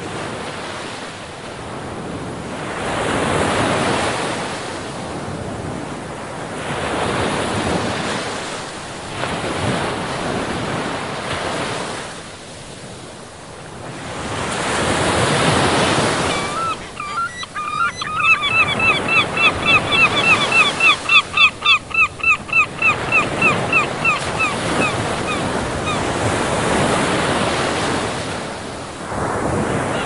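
Sea surf breaking on a rocky shore, surging and falling back every few seconds, with wind. Just past halfway a bird calls in a rapid, sharp series, several calls a second, for about eight seconds.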